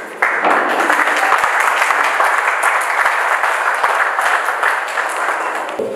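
Audience applauding. It starts suddenly and stops about six seconds later.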